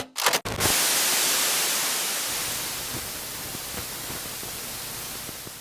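Static hiss of broadcast-style white noise: a few short crackles at first, then a steady hiss that slowly fades.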